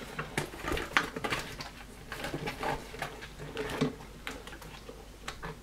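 Scattered light clicks, taps and rustles of a vinyl toy figure's box packaging being handled and pulled at while the figure is worked free of it.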